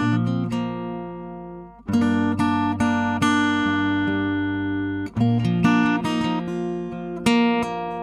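Segovia FC-07 GN folk cutaway acoustic-electric guitar heard through its Artec pickup preamp rather than a microphone, played as picked chords. A chord fades out, a new chord is struck about two seconds in and rings with single notes picked over it, and another chord starts about five seconds in with quicker picked notes after it.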